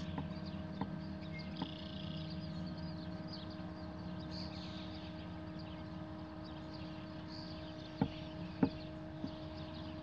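Astro-Physics Mach2GTO equatorial mount's right-ascension motor slewing at go-to speed: a steady two-tone motor whine over a low hum. A few sharp clicks come near the end, and faint birdsong sits in the background.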